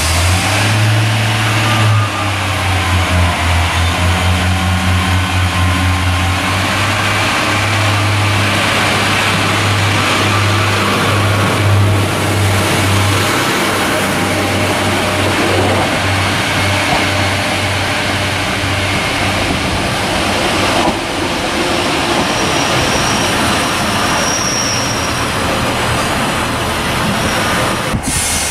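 Class 142 Pacer diesel railbus pulling away and passing close by. Its underfloor diesel engine gives a deep drone that pulses rapidly for about the first dozen seconds, then gives way to the steadier rolling noise of the cars going past.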